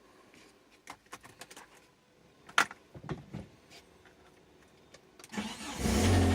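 VW Golf 3's 1.6-litre AEE four-cylinder petrol engine is cranked and catches about five seconds in, then runs. The engine is one that the owner says has piston slap. Before the start there are a few faint scattered clicks and one sharper knock.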